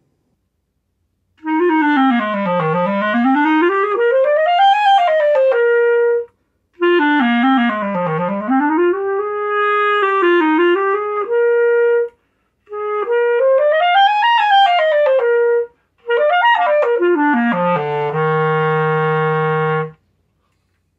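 Uebel plateau (covered-key) soprano clarinet, fitted with key extensions, playing basic exercises: four short phrases of scale and arpeggio runs that sweep down and back up, each ending on a held note. The last phrase drops step by step to a long low note near the end.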